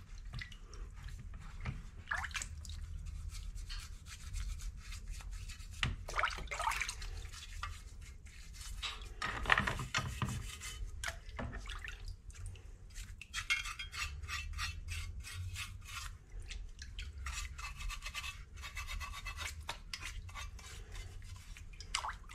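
Wet, rusty car-body sheet-metal pieces being lifted out of a citric-acid bath and handled: water dripping off them, with irregular rubbing and scraping on the metal and a few louder clatters.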